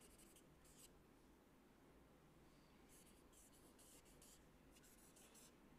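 Faint scratching and squeaking of a felt-tip marker drawing on a large paper sheet, in two spells of short strokes, over near silence.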